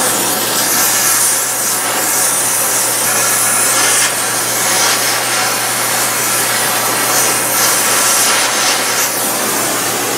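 Cutting torch hissing steadily as it burns through rusted truck bed bolts, a loud rushing hiss with a constant low hum underneath.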